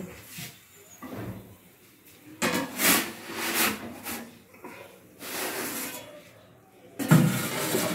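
A metal pizza peel scraping and sliding as a baked pizza is lifted off the stone of a gas pizza oven and set on a wooden board: three spells of rasping, sliding noise, the last about seven seconds in the loudest.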